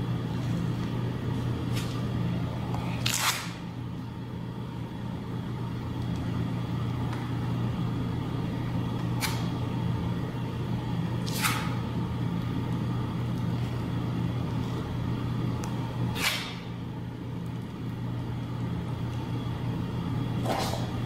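A steady low hum with about five short scraping swishes a few seconds apart, as tile adhesive is spread and scraped by hand in the bare patch left for a floor tile.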